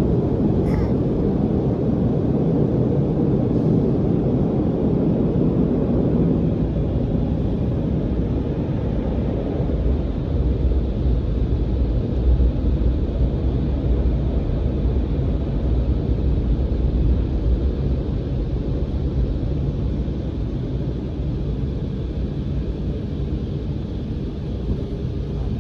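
Automatic car wash working over the car, heard from inside the car's cabin: a steady, dense rumble, heaviest in the low range and swelling somewhat in the middle.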